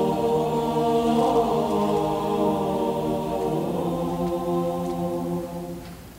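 Mixed choir singing a Georgian Orthodox chant unaccompanied, holding long chords that shift to a new chord about four seconds in, then fade away near the end.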